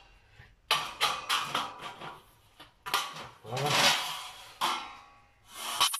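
Tin snips cutting through a bent galvanized steel plasterboard rail: a series of sharp metallic snips, crunches and clatters as the blades close on the thin sheet metal and the cut pieces knock together.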